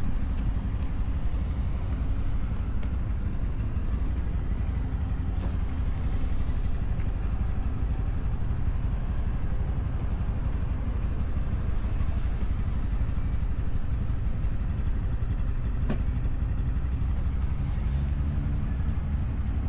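Motorcycle engine running at a steady low rumble, with no revving.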